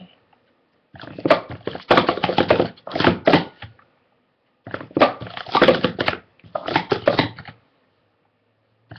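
Plastic sport stacking cups clattering and clicking against each other and the mat as they are stacked and unstacked at speed, in three quick bursts of rapid clicks with short pauses between.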